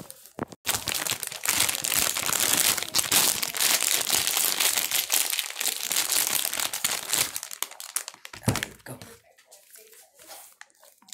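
Plastic Doritos chip bag crinkling loudly as it is handled and shaken close to the microphone for about seven seconds, followed by a single thump.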